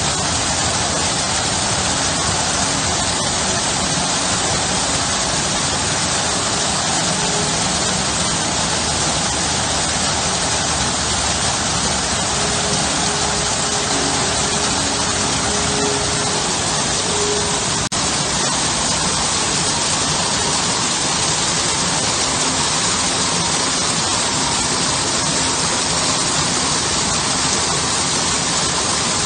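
Small garden waterfall pouring in thin sheets over a stone wall into a shallow pool: a steady, even rush of falling and splashing water.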